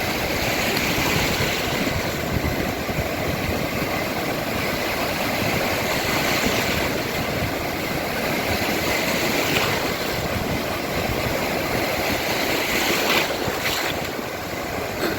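Sea surf washing in continuously: a steady rushing noise that swells and eases gently.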